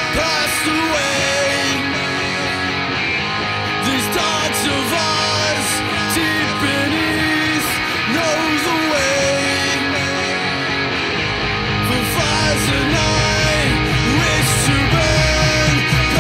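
Fast punk rock song played on electric guitars, bass and drums, with a melodic line over the band. About eleven seconds in, the low end gets much heavier as the band comes in harder.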